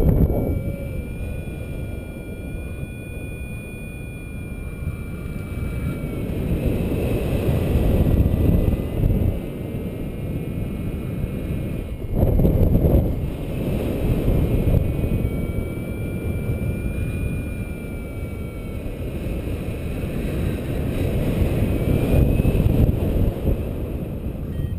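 Wind buffeting the camera microphone during a paraglider flight: a low rushing rumble that swells and eases, with stronger gusts about a third and half of the way in and again near the end. Faint thin high tones come and go above it.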